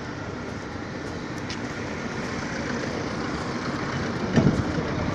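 Steady outdoor street noise, a continuous rumble and hubbub, with a brief louder burst about four seconds in.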